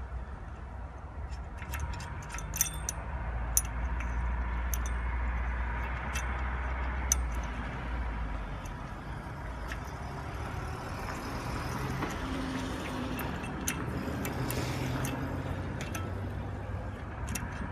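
Scattered metallic clinks of a small open-end wrench working the nut and bolt of a fence-panel clip on a steel post, over a low steady rumble that fades about halfway through.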